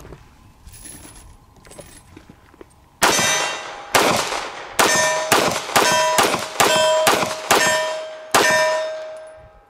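TriStar T-100 9mm pistol fired about ten times in quick succession, starting about three seconds in. Each shot is followed by the ringing of a struck steel target, which fades away after the last shot.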